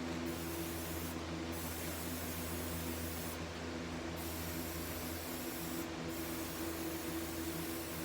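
Aerosol spray paint can spraying in long hissing bursts, with three short breaks where the nozzle is let up.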